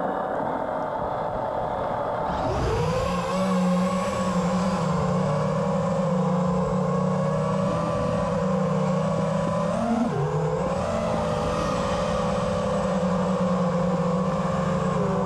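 5-inch FPV quadcopter's four brushless motors (RCinPower Smoox 2306.5 2580kv) spinning Gemfan three-blade props in flight: a buzzing whine that jumps up in pitch about two and a half seconds in as the throttle comes up, then wavers with throttle changes and dips briefly around ten seconds.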